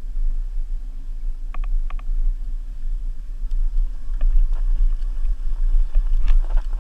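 Wind buffeting the camera microphone as an Oset electric dirt bike rides over bare rock, a deep rumble with a faint low hum beneath. Sharp clicks and rattles from the bike come a few times about a second and a half in, then more often from about four seconds on.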